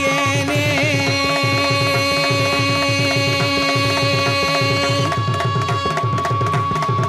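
Tamil devotional hymn music in the Carnatic style: a long held note over a steady hand-drum rhythm. The held note stops about five seconds in, while the drum and a higher held tone carry on.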